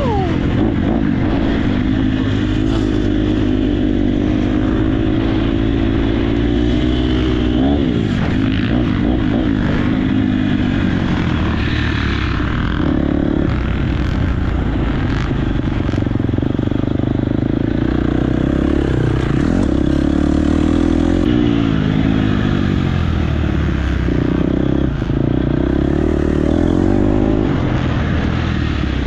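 Dirt bike engine revving up and falling back again and again as it is ridden, with rattling and knocks over rough ground.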